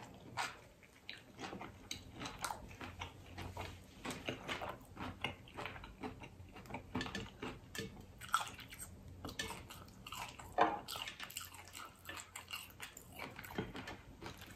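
Close-up chewing of a crunchy hard-shell taco: irregular crackles and wet mouth smacks. Now and then there are light clicks as fingers pick food off the tray.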